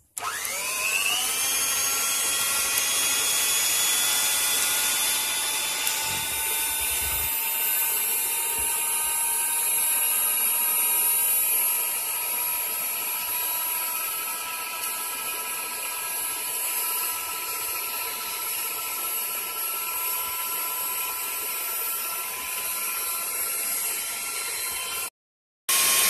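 Electric stand mixer with a rotating bowl running at high speed, its beaters whipping eggs until pale and fluffy. The motor whine rises in pitch as it spins up at the start, then holds steady; it drops out briefly near the end.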